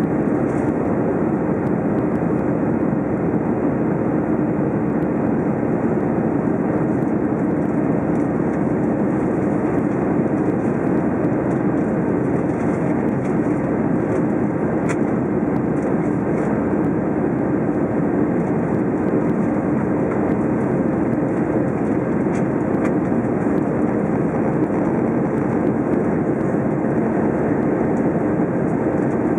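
Steady cabin noise inside an Airbus A319 climbing after takeoff: a constant low drone of the engines and rushing air, with a faint steady hum.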